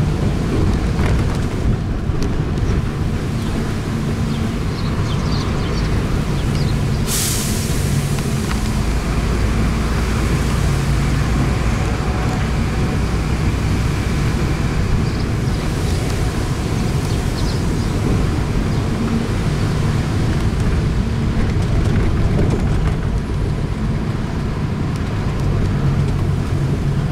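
Open-top tour bus driving along, its engine running steadily under road and air noise heard from the open top deck, with one short sharp burst of noise about seven seconds in.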